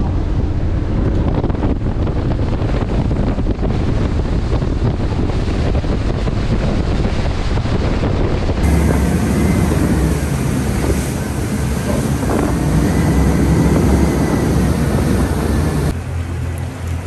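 Boat running at speed on quad Mercury 600 V12 outboards: a steady low engine rumble under rushing water from the wake and heavy wind buffeting on the microphone. Near the end the sound drops abruptly to a quieter low rumble.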